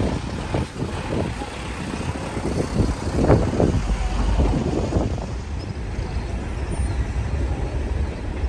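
Diesel truck engine running at low revs while the truck reverses slowly onto a ferry's steel loading ramp. A cluster of short, sharper sounds stands out about three to five seconds in.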